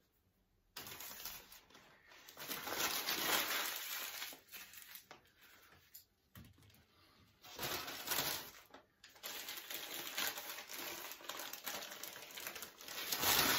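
Paper food wrapping rustling and crinkling as sandwiches are handled and unwrapped, in long stretches broken by short pauses.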